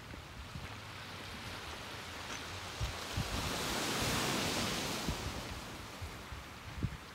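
Ocean surf washing ashore as a steady rush, one wave swelling to its loudest about halfway through and then easing off, with a few short low bumps.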